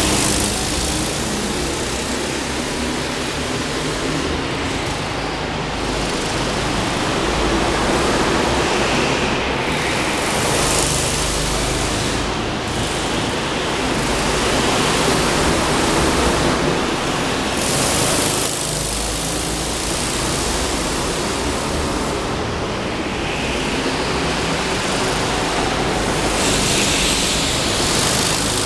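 Go-kart engines running around an indoor track, a continuous engine noise that swells several times as karts pass close by, in a large concrete hall.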